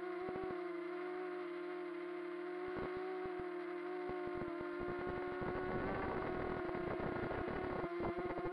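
Quadcopter drone's electric motors whining at a near-steady pitch, with rapid crackling clicks that grow denser and a little louder from about halfway through.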